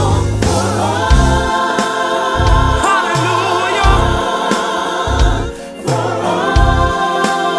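Gospel song: voices singing in harmony, holding long chords over a bass line, with a short break about three-quarters of the way through before the chord comes back in.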